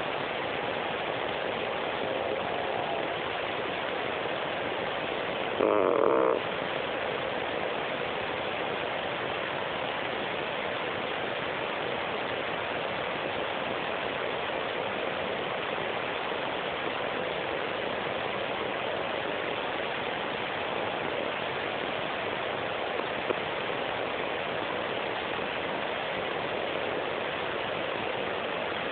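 A sleeping cat snoring softly under a steady hiss, with one brief, louder sound about six seconds in.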